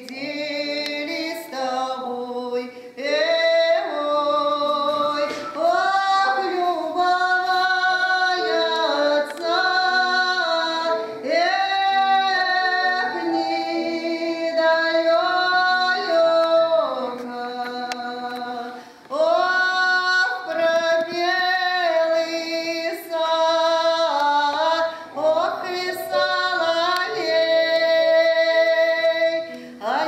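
A woman singing a slow melody, holding long notes with a wavering vibrato, with short breaks between phrases.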